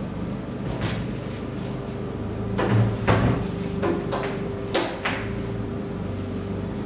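The sheet-metal casing of a small inverter stick welder knocking and sliding on a tabletop as it is turned around by its handle, with a few separate knocks, the loudest near the middle.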